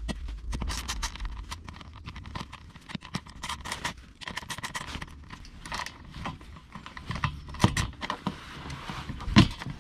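Metal tool work on 10 mm undertray bolts: a socket wrench clicking and scraping irregularly as the bolts are undone, with a louder knock near the end.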